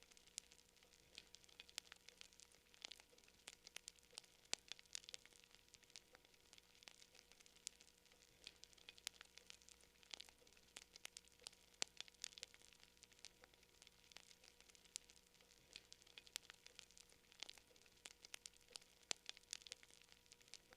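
Campfire crackling: burning wood giving off sharp little pops and snaps, scattered irregularly several times a second, over a faint steady hum.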